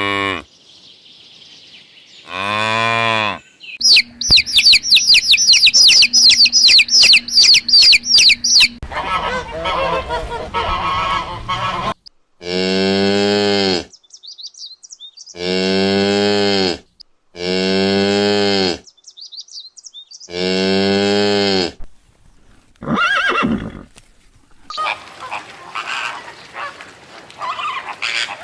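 Cattle mooing in a run of long, low calls, one after another. Earlier comes a burst of rapid high-pitched animal calls, and near the end geese honking.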